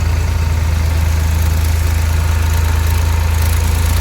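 Crane engine running steadily at a constant speed, with a strong low hum, while it holds the transformer core on its hook.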